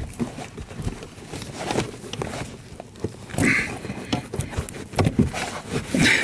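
A new cabin air filter being pushed into its plastic housing by hand: irregular knocks, clicks and scrapes, with two short rustling scrapes about halfway through and near the end.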